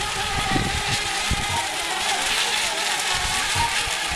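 Several electric RC racing boats running together, their motors making a steady high whine that bends slightly in pitch as they corner, with an irregular low rumble of wind on the microphone.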